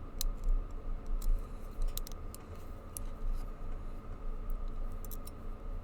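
Scattered small metal clicks and scrapes from a probe pressing down the pins of a Master Lock Street Cuff's tubular lock while a pick holds it under tension. A low rumble of hands handling the lock and a faint steady hum run underneath.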